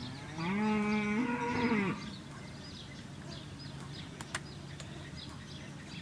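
A dairy cow moos once: a single call about a second and a half long that rises at the start and then holds. Small birds chirp faintly throughout.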